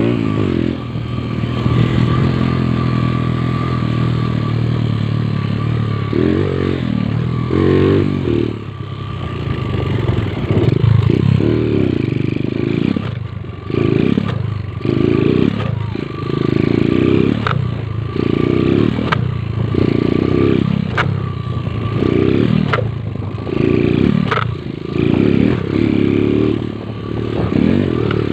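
Motorcycle engine revved in short repeated bursts of throttle, roughly once a second, with some clattering and scraping.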